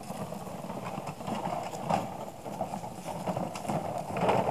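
Footsteps and rustling on a dry, leaf-covered trail: irregular crunching and scuffing with small ticks, somewhat louder near the end.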